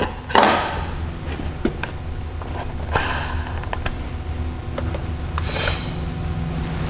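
Handling noise from plastic permeate tubing being pulled off the fittings on a reverse osmosis membrane housing's end caps: a few short plastic clicks and brief rubbing scrapes, the most prominent about three seconds in, over a steady low hum.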